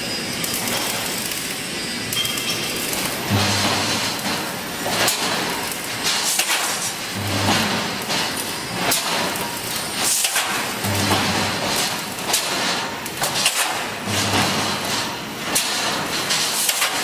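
Automatic wire mesh welding machine running: a steady clatter of clicks and metallic knocks from the wire feed and welding heads, with a low electrical hum that comes in for under a second about every four seconds as the welding current is applied to a row of cross wires.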